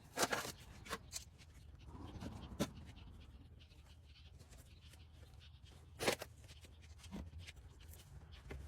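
Scattered sharp clicks and knocks of hand tools and metal parts as the shroud is taken off a small Honda engine to reach its ignition coil, the strongest just after the start and about six seconds in, over a low steady hum.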